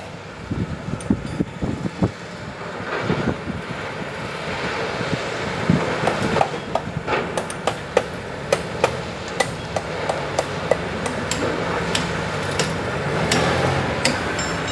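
Excavator's diesel engine running while its bucket scrapes ballast out of a tipped steel side-dump gondola car, with many sharp, irregular clanks of stone and steel against the car body.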